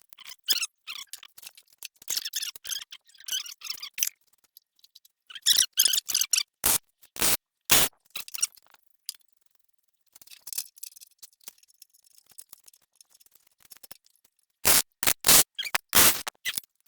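Welding arc crackling in short, broken runs while bolts are tack-welded to a steel base plate. A few harsher bursts come around the middle and again near the end.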